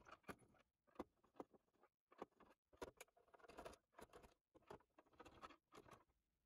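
Near silence, broken by a dozen or so faint, irregularly spaced ticks.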